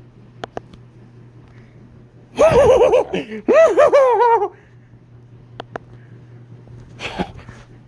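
Elmo toy giggling in a high, squeaky voice for about two seconds, with a few sharp clicks before and after.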